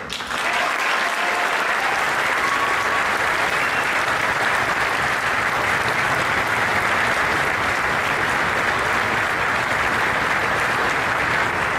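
Large audience applauding: dense, steady clapping from many hands that breaks out suddenly and holds at an even level.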